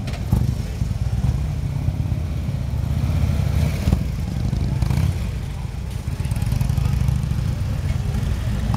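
Harley-Davidson touring motorcycles' V-twin engines running at low revs as they ride slowly past, a steady low rumble.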